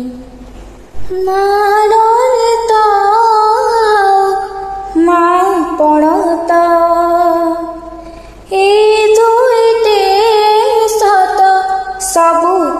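A woman singing an Odia bhajan melody in long, held, ornamented phrases, with short breaks about a second in and just past eight seconds.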